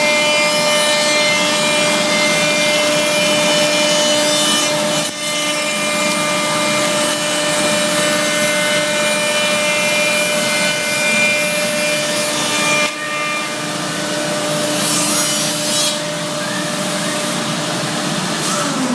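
Holzher Multimaster 7123 CNC machining centre milling wood: a steady spindle whine over the rasping hiss of the cutter in the workpiece. The sound dips briefly twice, about five and thirteen seconds in, and the higher whine fades after the second dip.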